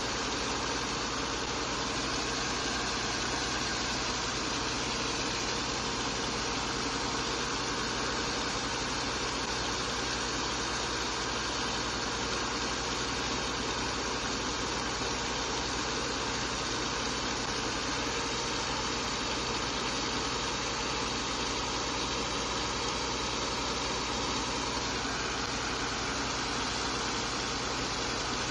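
A pump engine running steadily with water gushing from a pipe onto wet sand in a barge's hold, one even, continuous sound.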